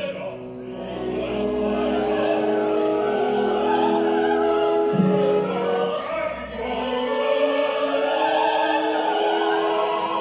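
Opera singing with a full orchestra, held sung notes over a sustained accompaniment; the music dips briefly near the start and then swells again.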